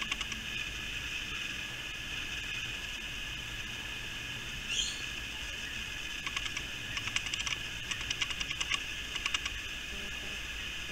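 Wallaby chewing crispy fried chicken: several short runs of rapid, fine crunching clicks in the second half, with a few at the very start. Under it is a steady high-pitched drone, and a single short chirp about five seconds in.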